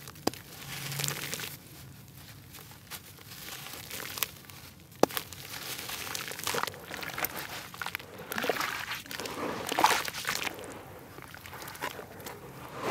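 Wet lumps of grainy red dirt crumbling and squishing in hands in a basin of muddy water. The sound comes as irregular gritty, sloshing bursts with a few sharp clicks.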